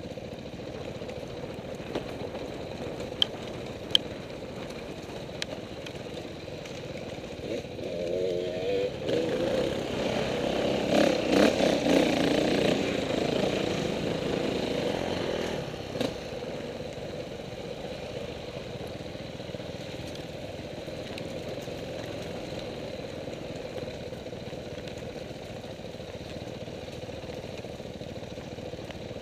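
Dirt bike engine running at low speed, picking up and revving harder for several seconds about a third of the way in, then settling back to a steady low run. A couple of sharp clicks come a few seconds in.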